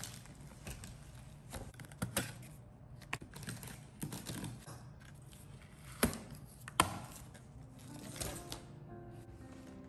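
Cardboard shipping box being handled and opened: the flaps and packaging rustle and scrape, with irregular taps and knocks and two sharp knocks about six and seven seconds in. Faint music comes in near the end.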